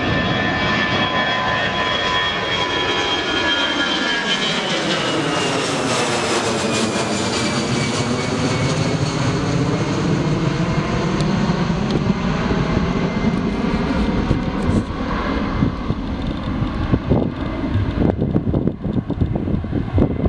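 Airbus A320-232 jet with IAE V2500 turbofans climbing out at takeoff thrust and passing overhead. The high engine whine falls in pitch as it goes over during the first several seconds, leaving a deep rumble that turns choppy as the jet climbs away.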